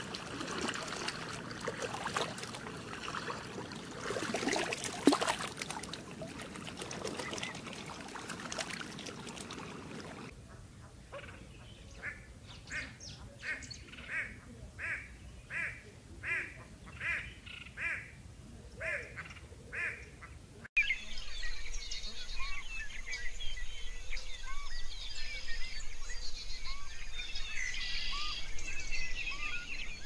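Three stretches of bird sound. First, black swans on a pond, heard as a mix of calls and noise. Then a great hornbill gives a regular run of short calls, about one and a half a second, for about ten seconds. After a sudden cut, a flock of pigeons with busy chirping and calls over a low hum.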